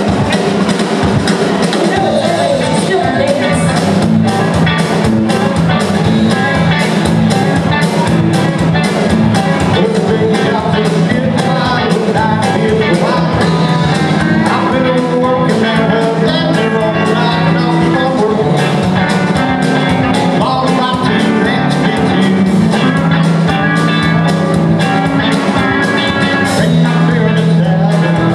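Live rock band playing with electric guitars, bass, drum kit and pedal steel guitar, the drums keeping a steady beat under sustained guitar notes.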